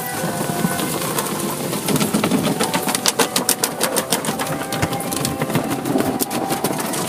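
Car wash machinery running: a steady motor hum with many rapid, irregular slapping clicks over it.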